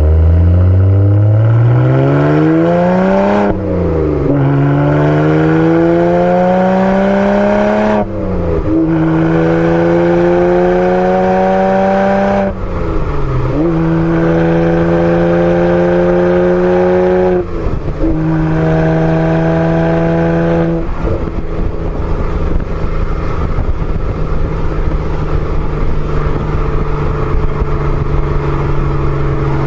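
BMW 135i's N54 twin-turbo inline-six exhaust, through an aFe Mach Force XP cat-back with a straight center pipe, pulling up through the gears with the engine not yet warmed up. The note rises steadily, dips sharply at each of four upshifts, then settles into a steady cruise drone about two-thirds of the way through.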